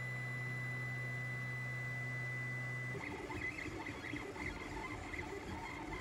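Ender 3 3D printer working as a pen plotter, its stepper motors moving the pen. It hums steadily for about three seconds, then changes to an uneven, fluttering whir as the pen traces curves.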